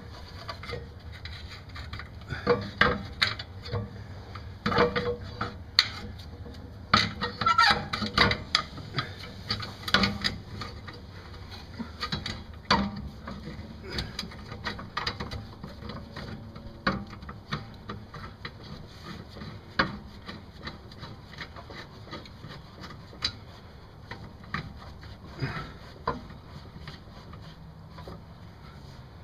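Irregular metal clanks, knocks and scrapes as a steel Ford Mustang rear sway bar is manoeuvred by hand into position against the lower control arm, with a few short squeaks among them. The knocks are thicker in the first half and thin out toward the end.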